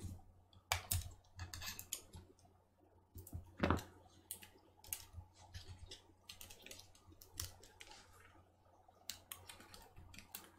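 Scattered light clicks and taps of fingers pressing a MacBook Pro Retina's battery cells down into its aluminium case, with one tap a little louder about three and a half seconds in.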